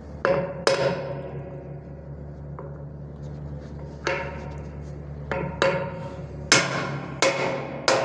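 Hammer blows on a drift, driving a ball bearing into the bearing housing of a carpet centrifuge's door. There are two strikes, then a pause of about three seconds, then six more coming closer together, each with a short metallic ring.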